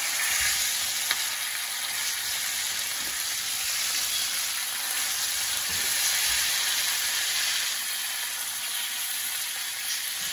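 Ribeye steaks sizzling steadily as they sear in butter with garlic and rosemary in a frying pan, with a single sharp click about a second in.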